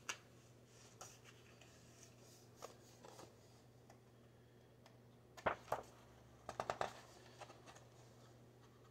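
Sheets of paper being handled: scattered short rustles and crinkles, a few of them louder from about five and a half to seven seconds in, with quiet stretches between.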